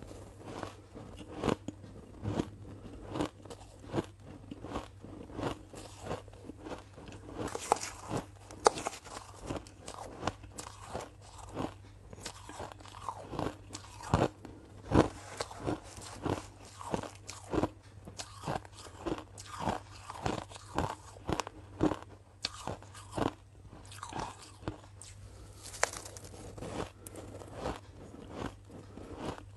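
Ice being bitten and chewed close to the microphone: a steady run of sharp, crunchy cracks, about one to two a second.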